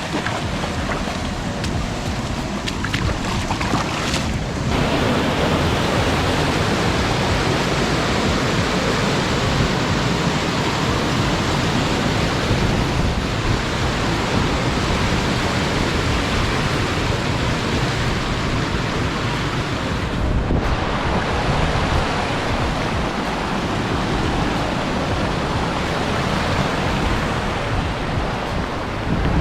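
Rushing water of a waterfall pouring into a pool, a steady, loud noise that grows louder about four and a half seconds in.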